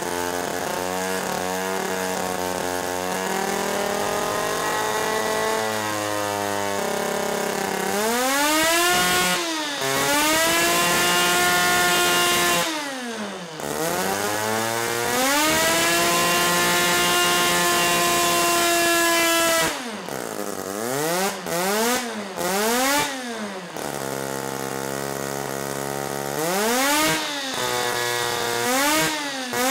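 Small see-through Wankel rotary engine revving hard: it runs unevenly at lower speed, then about eight seconds in it climbs to a high-pitched whine and holds it, drops, climbs again and holds for several seconds. Near the end it gives a string of quick throttle blips.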